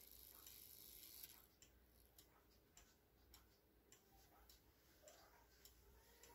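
Antique German bim-bam wall clock movement ticking: the pendulum escapement gives faint, even ticks a little under two a second. A faint hiss underneath drops away about a second in.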